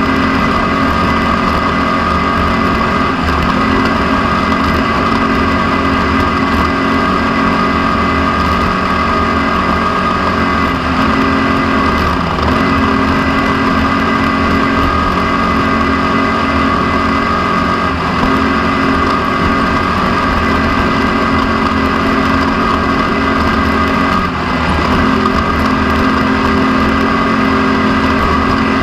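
Off-road race vehicle's engine running hard and steady, picked up by an onboard camera, with the revs dipping briefly and climbing back about twelve seconds in and again near the end.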